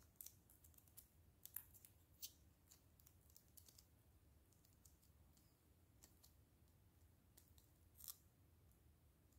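Faint, scattered sharp clicks and taps of clear plastic phone-case pieces being handled and fitted together, the loudest about a second and a half in and again near the end.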